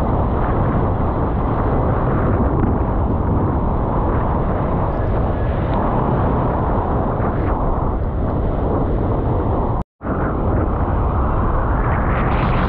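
Wind buffeting the microphone of a camera riding along on a kitefoil at speed: a loud, steady low rush, cut off for a moment about ten seconds in.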